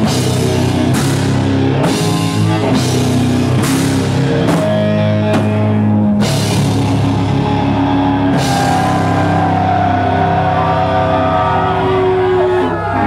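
Live heavy metal band playing loud: distorted guitars and a drum kit with cymbal crashes about once a second, giving way about six seconds in to long ringing guitar notes with fewer hits.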